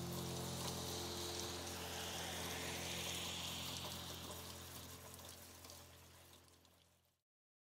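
Rain falling over a low held note, both fading out and stopping dead about seven seconds in.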